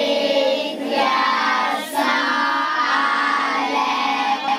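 A class of schoolchildren singing together in unison, in phrases with short breaks between them.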